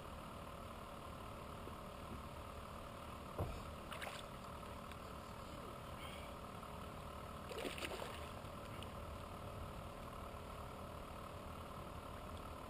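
Faint steady water noise around a plastic kayak while a hooked bass is reeled in, with a single sharp knock about three and a half seconds in and a brief splash-like rush near eight seconds.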